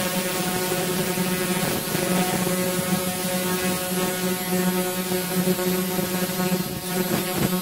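A 300 W pulsed laser rust cleaner (GTHLTS300W) stripping rust from a cast-iron stove, giving a steady buzzing hum with a brief dip near the end.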